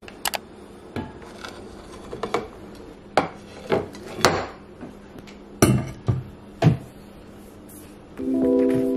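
A plate and a drink tumbler being handled and set down on a wooden table: a string of separate knocks and clinks, the loudest a few knocks past the middle. Background music comes in near the end.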